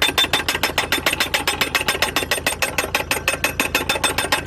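Guardrail post-driving machine hammering a post into the ground with rapid, even, ringing metal blows, several a second, over the steady hum of its engine. This is the first hammering stage, which drives the post in only a short way before it is checked for level.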